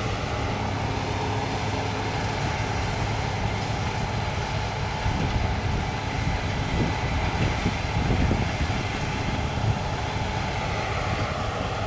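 Case 8230 combine running as it moves off across the field: a steady low drone with a faint whine above it.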